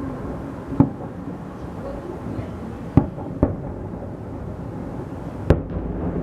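Fireworks salute shells bursting: four sharp bangs, the middle two close together, over a steady background of crowd voices.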